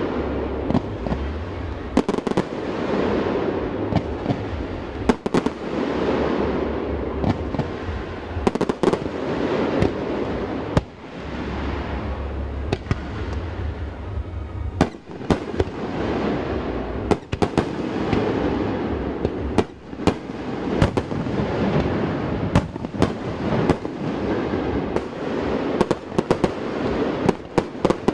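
Aerial fireworks display: firework shells bursting in quick succession, many sharp bangs at irregular intervals over a continuous rumble.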